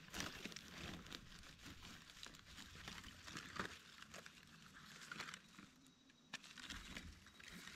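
Faint, irregular crackling and rustling of dry leaf litter, scattered crackles with no steady rhythm.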